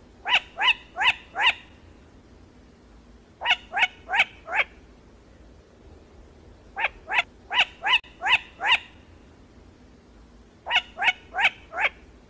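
Cranes calling: four bouts of short, rising bugling notes, four to seven notes to a bout at about three a second, with pauses of a couple of seconds between bouts.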